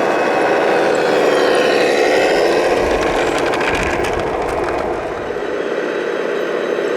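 Radio-controlled model construction vehicles running: electric drive motors and gearboxes whirring steadily, with a whine rising in pitch near the middle and some clicking and scraping a little after.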